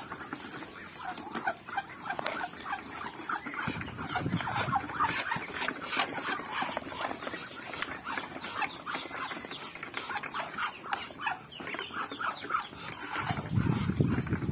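A flock of Muscovy ducks crowding a basin and feeding: a fast stream of short pecking and dabbling sounds, with some low thuds near the end.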